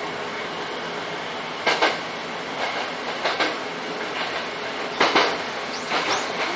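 Nose Electric Railway electric train running along the track, heard from inside the driver's cab: a steady rumble of wheels on rail with sets of sharp clicks, often in pairs, as the wheels pass rail joints, a few times over.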